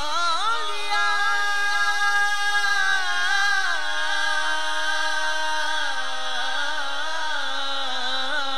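A man singing an Urdu naat unaccompanied into a microphone: one long drawn-out melismatic phrase, first wavering through ornaments, then settling on long held notes.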